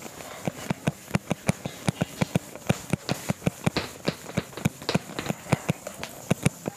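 Whiteboard duster scrubbing a whiteboard in quick back-and-forth strokes: a rapid run of short knocks, about five a second, with a light rubbing hiss.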